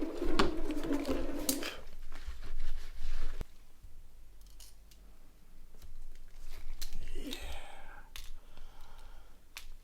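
Small clicks, taps and scraping of phone parts being handled during reassembly of a Nokia 5610 XpressMusic, with a longer crinkly scrape about seven seconds in.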